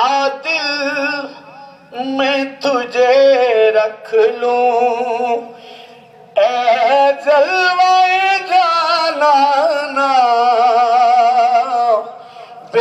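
A man singing a devotional naat through a microphone, in long held notes with wavering ornaments. He breaks off briefly about two and six seconds in, then holds one long phrase to near the end.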